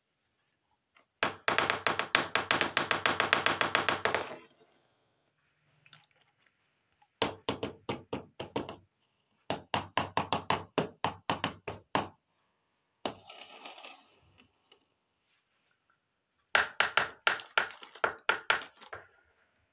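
Small plastic toy kitchen pieces handled and set down, making rapid clicking and knocking in several runs of one to three seconds each, with a softer rustle between them.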